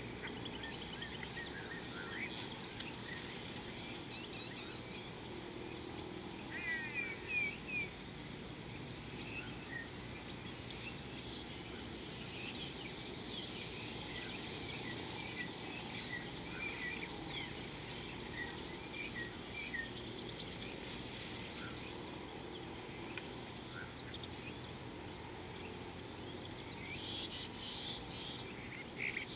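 Birds chirping and calling: many short rising and falling notes scattered throughout, busiest about seven seconds in and again near the end, over a steady background of outdoor noise.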